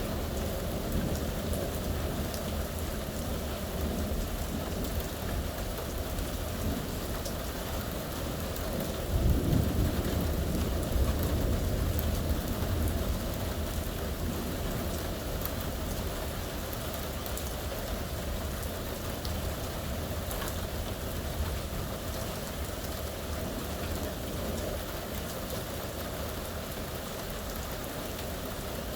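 Steady heavy rain falling through a thunderstorm, with a low rumble of thunder swelling about a third of the way in and fading over a few seconds.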